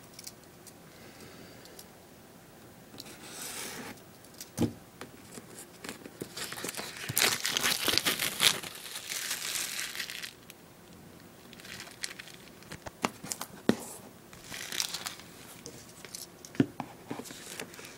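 A cardboard power-supply box being opened by hand: rubbing, crinkling and tearing of the packaging, heaviest for a few seconds in the middle, with a few sharp knocks.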